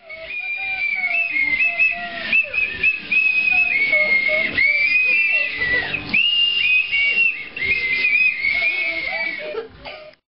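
Several children blowing toy whistles at once: shrill overlapping tones that hold, jump and slide in pitch, with scattered knocks from other toy instruments.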